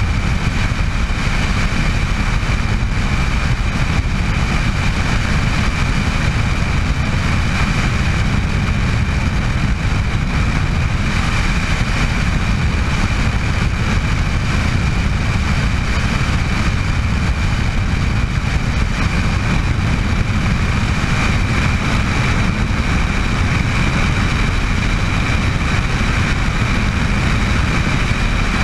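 Bell 206 JetRanger helicopter in steady flight, its Allison 250 turboshaft engine and rotors making a constant deep rumble with a steady high turbine whine over it.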